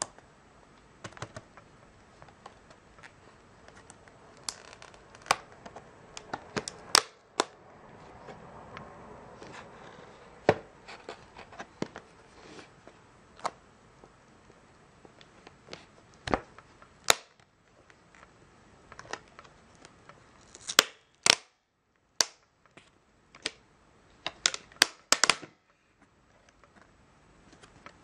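Stiff clear plastic clamshell packaging crackling and clicking in the hands as a paper barcode sticker is peeled off it: irregular sharp clicks and crinkles, with a soft tearing hiss and a busy cluster of clicks near the end.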